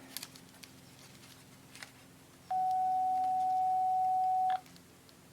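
Loudspeaker from a 1948–50 Airzone valve radio, driven by an audio signal generator, sounding one steady mid-pitched test tone for about two seconds, starting about two and a half seconds in, after a few faint clicks. The speaker works, though not at its best.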